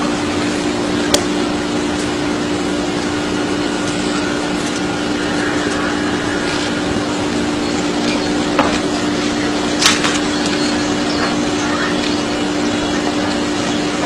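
A steady machine hum over a constant hiss, with three short sharp clicks: one about a second in and two more between eight and ten seconds in.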